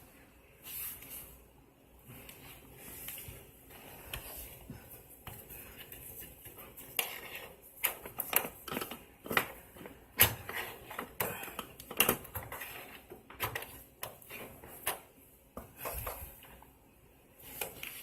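Hands working with small metal and plastic parts: irregular clicks, taps and clatter, thickest from about seven to thirteen seconds in.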